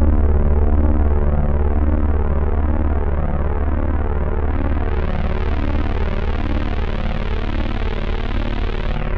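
Roland Juno-106 analog synthesizer holding a sustained chord over a deep bass note, with a slow pulsing shimmer. It turns brighter about halfway through, as if the filter opens, and darkens again at the end.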